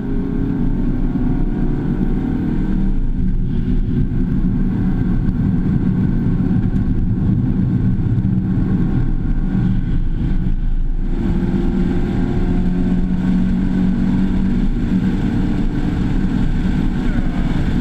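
Mazda2's 1.5-litre four-cylinder engine running hard at high revs, heard from inside the cabin with road and tyre noise under it. The engine note shifts about three seconds in and dips briefly around eleven seconds in, then climbs again.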